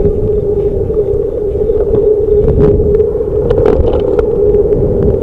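Riding noise on a bicycle handlebar camera: a steady wind rush and drone over the microphone with a low rumble of road traffic, and scattered light clicks and rattles from the bike.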